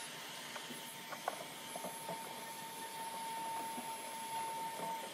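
Handheld electric heat gun running, a steady blowing hiss with a thin whine, with a few light clicks and knocks as the wooden strip is pressed against its jig blocks.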